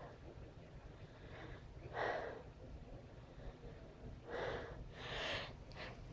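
A person's short, breathy gasping inhalations: one about two seconds in and two close together near the end, the catching breaths of a sneeze coming on.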